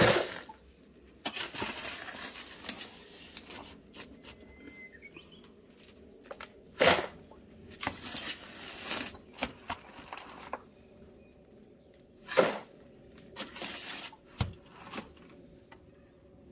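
A steel shovel scraping up gravelly soil and tipping it into a styrofoam box: several sharp scrapes and rattling pours a few seconds apart, the loudest at the very start and about seven seconds in.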